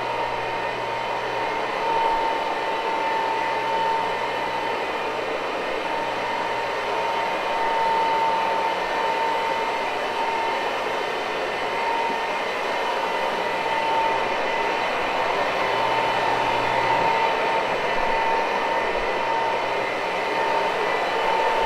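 Rotary floor machine running steadily as it scrubs a low-loop carpet with an AstroTurf pad: a continuous motor hum with a steady high whine over a scrubbing hiss, swelling slightly now and then.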